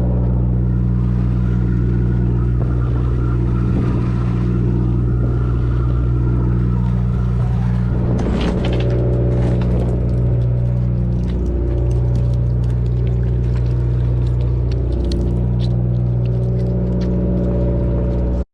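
Fishing boat's engine running at a steady, even drone, with scattered clicks and rustling about halfway through.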